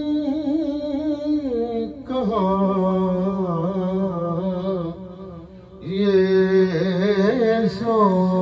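A man singing an Urdu naat (devotional poem in praise of the Prophet) unaccompanied, in long drawn-out held notes with wavering, ornamented pitch. He breaks for breath about five seconds in, then takes up a higher, stronger line.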